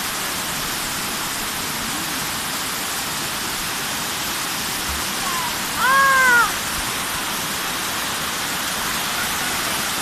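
Waterfall rushing steadily into its plunge pool. About six seconds in, a short high cry rises and falls in pitch over the rushing water.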